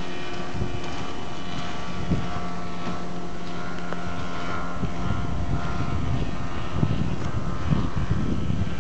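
A steady engine hum holding one pitch. About five seconds in it gives way to wind gusting on the microphone.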